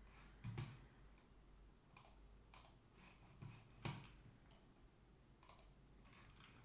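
Faint, scattered computer mouse clicks, a handful at irregular intervals, two of them with a soft low knock, over a quiet room.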